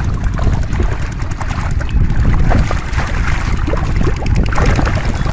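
Water splashing and sloshing in irregular bursts over a heavy, continuous low rumble.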